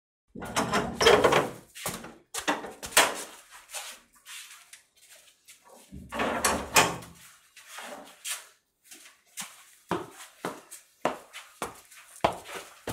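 An old steel door being unlatched and swung open, with several clanks and knocks over the first seven seconds. Near the end comes a run of footsteps, about two a second.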